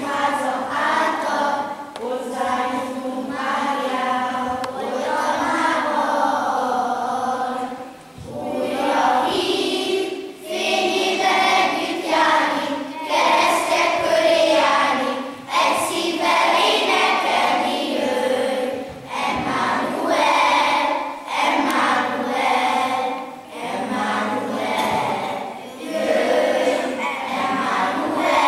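A children's choir singing together in phrases, with short pauses for breath between them.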